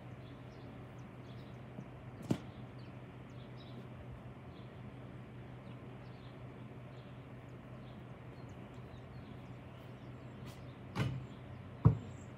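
Quiet outdoor background with a steady low hum and a faint click about two seconds in. Near the end comes a short scuffle, then a single sharp thud, a basketball bouncing on hard ground.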